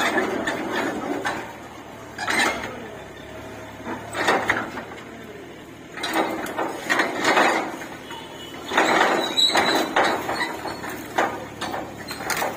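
Steel loading ramps clanking and knocking irregularly under a Sany SY20 mini excavator as it crawls down them off a truck, with the machine's engine running low underneath.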